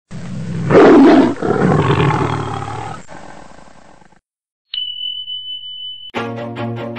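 Intro sound effects: a loud, noisy rush that is loudest about a second in and fades away over about four seconds. After a brief silence comes a steady high-pitched tone held for about a second and a half, and music with a beat starts just before the end.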